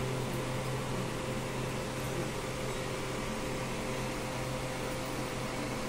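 Steady low hum with a constant hiss, unchanging throughout: background room noise of the kind a fan or running appliance gives, with no other sound.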